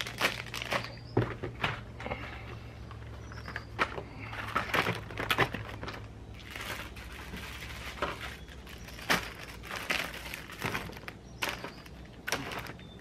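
Plastic-wrapped packets crinkling and rustling as they are handled, with irregular clicks and light knocks of small items being set into a plastic storage case.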